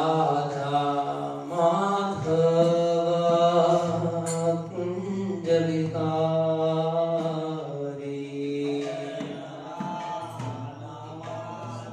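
Devotional chanting sung in long, slowly changing held notes over a steady low accompaniment.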